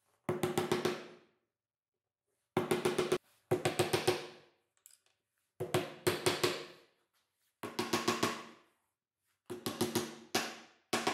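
A small hammer tapping wooden dowel pins into the holes of plywood clamp corner blocks: short runs of quick taps, about seven runs in all, each tap with a brief woody ring.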